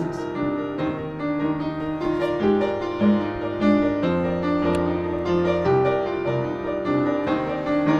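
Piano playing a slow, gentle accompaniment of held, overlapping notes.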